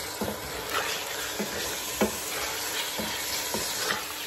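Diced chicken frying with a steady sizzle in a stainless steel pot while a wooden spoon stirs it, scraping and knocking against the pot about twice a second, one knock louder about two seconds in.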